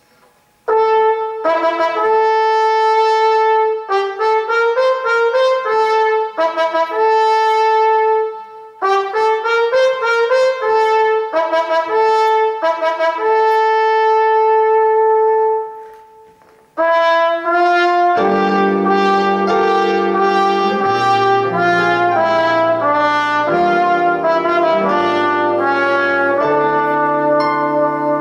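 Music: a slow solo melody in a brass, trumpet-like tone, played in long held phrases after a quiet first second. After a short break about two-thirds of the way through, lower sustained accompanying notes come in beneath the melody.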